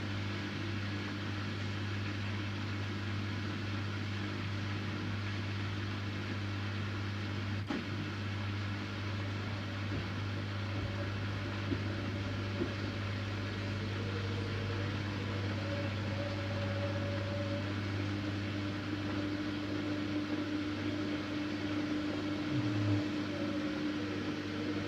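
Siemens Siwamat iQ 716 washing machine running with a steady low hum, with a faint click about eight seconds in.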